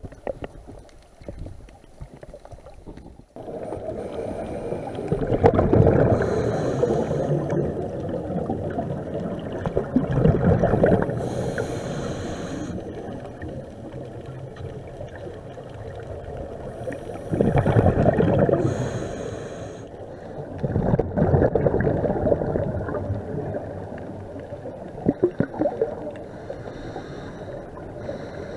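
Scuba diver's regulator breathing heard underwater: exhaled bubbles gurgling in about five surges several seconds apart, with a steady rushing noise between them.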